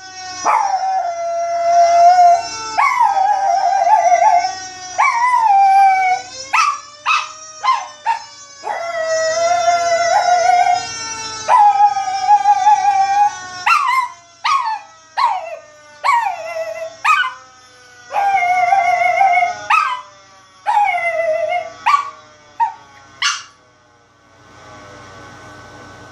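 A Chihuahua howling along to a fire-engine siren sound effect. It gives a string of long, wavering howls broken by short yips, while the siren glides slowly up and down underneath. The howling stops a couple of seconds before the end.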